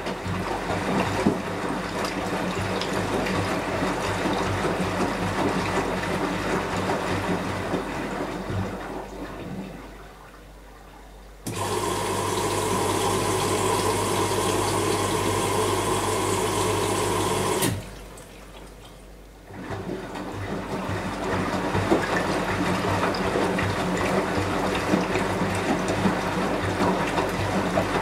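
Beko WMY 71483 LMB2 front-loading washing machine in its rinse phase: the drum tumbles the wet laundry with sloshing water. About a third of the way in, the drum pauses and a steady hum with rushing water starts abruptly and cuts off about six seconds later. After that the tumbling and sloshing resume.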